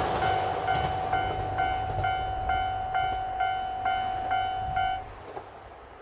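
Japanese railway level-crossing alarm bell dinging about twice a second, eleven or so times, over the fading noise of a train that has just passed. It stops about five seconds in as the crossing clears.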